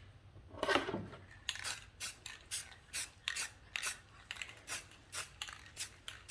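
Paintbrush stroking paint onto a metal roof piece in quick, scratchy strokes, about three a second.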